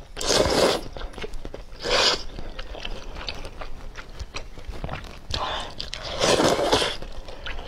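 Close-up slurping of noodles from a soupy bowl: loud slurps near the start, briefly about two seconds in, and a longer one around six seconds in, with small wet chewing clicks between them.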